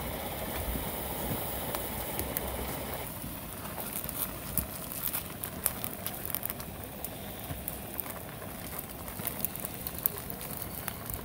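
Wood fire crackling in a homemade fire pit, with sharp pops scattered throughout. A steady rushing noise underneath drops away about three seconds in.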